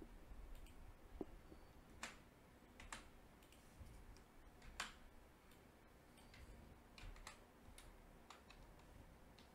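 Faint, irregular clicks of a computer keyboard and mouse as text is deleted and typed, about a dozen clicks spaced unevenly.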